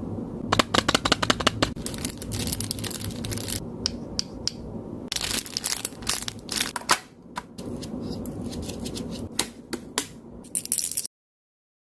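Jewellery and its plastic packaging being handled during unboxing: an irregular run of sharp clicks and crinkles that stops abruptly near the end.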